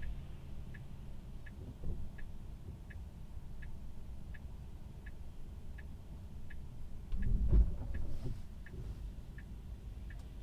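Tesla's indicator ticking steadily inside the cabin, about three ticks every two seconds, over a low rumble from the car; the rumble swells briefly about seven seconds in.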